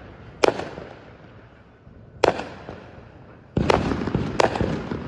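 Fireworks exploding: four sharp, echoing bangs at uneven intervals of one to two seconds, with a dense continuous noise setting in about three and a half seconds in, under the last two bangs.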